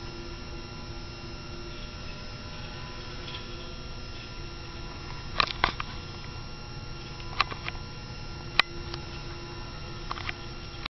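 Steady hum with a faint whine that fades out and comes back near the end, likely the tiny electric motor and propeller of a Parkzone Ember indoor RC plane circling the room. Several sharp clicks or taps sound from about halfway through, the loudest near the end.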